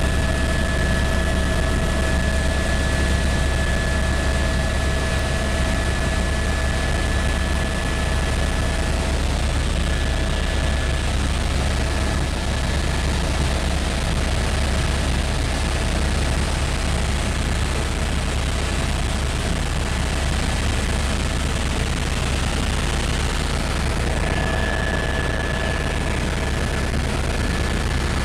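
Helicopter in flight heard from inside the cabin: a steady, loud low rotor rumble under a wash of noise, with a high whine that fades out in the middle and comes back near the end.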